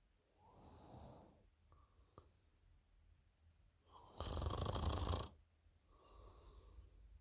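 A sleeping person snoring: quieter breaths in and out, with one loud snore about four seconds in.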